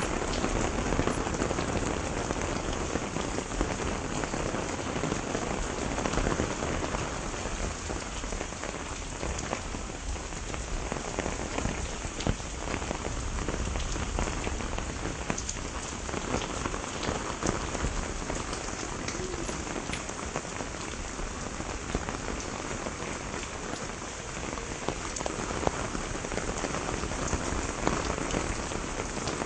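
Steady rain shower, a dense even patter of drops with scattered louder single drop hits.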